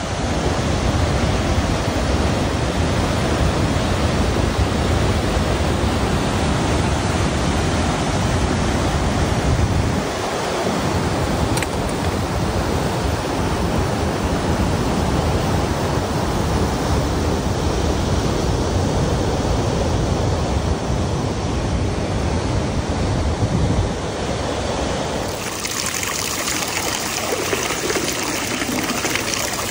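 Rushing water, loud and steady with a deep rumble. Near the end it changes abruptly to a brighter, hissing splash of water.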